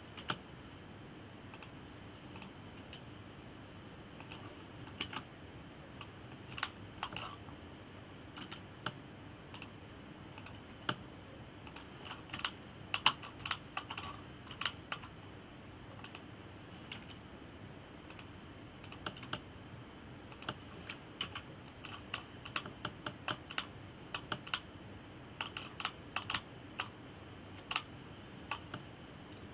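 Computer keyboard keys and mouse buttons clicking irregularly: scattered single clicks with quicker runs of several clicks now and then, over a faint steady hum.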